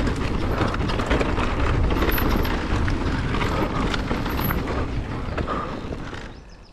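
Mountain bike riding over rough trail: a dense rumble of tyres on dirt and rock, with many sharp rattles and clicks from the bike. The noise fades away near the end as the riding eases off.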